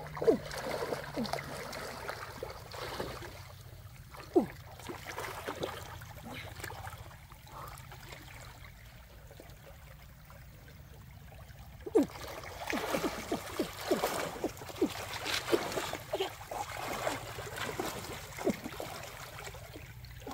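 Hands splashing and sloshing in a shallow, muddy stream as someone gropes under the water among rocks, over the steady sound of the flowing water. A sharp splash comes just after the start and another at about four seconds, the water goes quieter for a few seconds, then a busy run of splashing follows in the second half.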